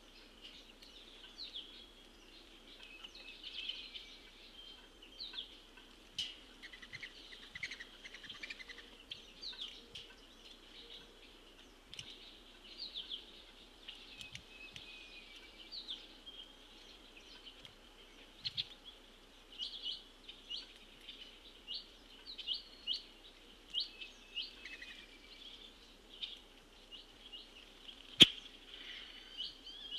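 Birds chirping outdoors: many short, high chirps repeated through the whole stretch. A single sharp click stands out near the end.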